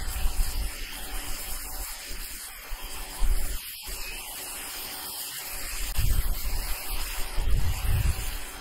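Steady hiss of the water jet from a Ryobi 1600 psi electric pressure washer's turbo nozzle spraying onto asphalt roof shingles, with a few low rumbles, the loudest in the last third.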